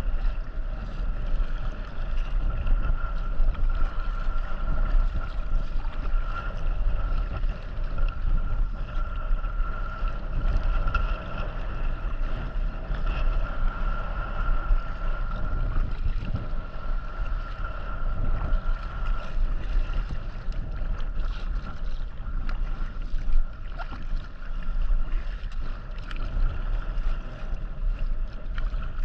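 Sea kayak paddling on open water, with wind rumbling on the microphone. A steady high-pitched whine fades out about two-thirds of the way through.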